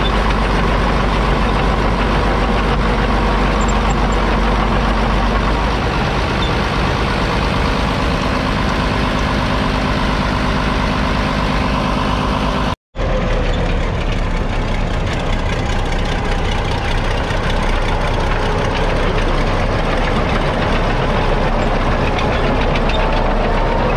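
International Harvester BTD20 crawler's 12.2-litre six-cylinder Rolls-Royce diesel running steadily. The sound drops out for a moment about halfway, then carries on.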